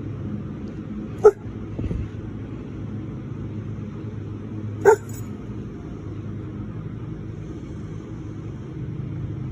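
A dog giving two short, sharp barks about three and a half seconds apart, each dropping in pitch, over a steady low hum.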